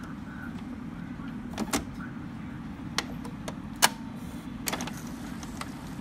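Epson L385 ink-tank printer mechanism working: a steady low hum broken by several sharp clicks, the loudest a little before four seconds in.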